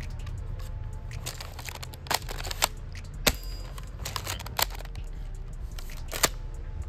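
Double Eagle M56B spring airsoft shotgun being handled, its plastic parts giving about five sharp, separate clicks a second or more apart, over a steady low rumble.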